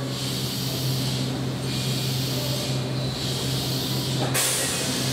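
Keihan electric train at the station platform: a steady low hum with air hissing that swells and fades every second or so, then a sudden louder burst of air hiss about four seconds in, typical of the air brakes.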